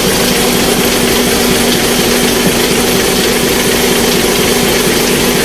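Isuzu 6WF1 common-rail diesel engine running at a steady idle after a restart, with its solenoid valve newly replaced to cure hard starting.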